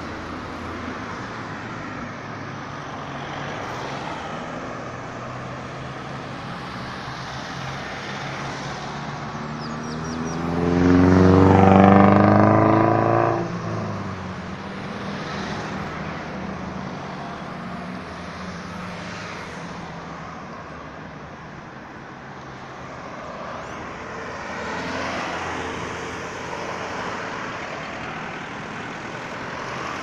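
Road traffic moving around a roundabout: a steady hum of cars passing. About eleven seconds in, one vehicle's engine comes loud and close, rising in pitch as it accelerates past, then fades.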